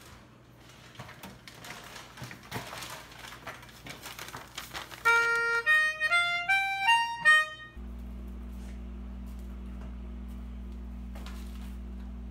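A short, quick jingle of about ten stepped notes on a reedy instrument, followed abruptly by a steady low hum.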